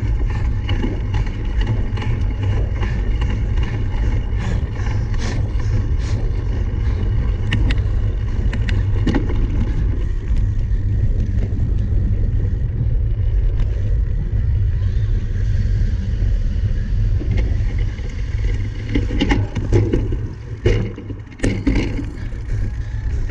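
Cyclocross bike ridden at race pace: a steady low rumble of wind on the microphone, with scattered sharp clicks and knocks from the bike rattling over rough ground, busier near the end.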